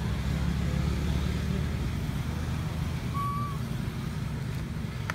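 Low, steady rumble of an engine running, easing slightly after about three seconds, with a single short high chirp about three seconds in.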